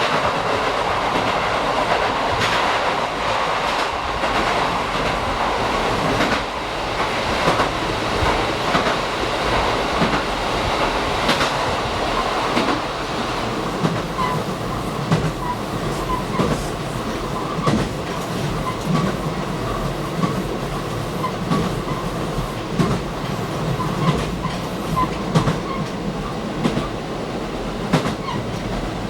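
Diesel limited-express train running, heard from inside the front car: a steady running noise with wheels clicking over rail joints. Faint brief wheel squeals come in the second half.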